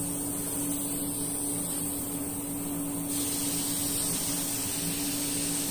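Compressed-air hiss of a Harbor Freight gravity-feed detail spray gun spraying finish, starting about halfway through and then held steady, over a steady low hum.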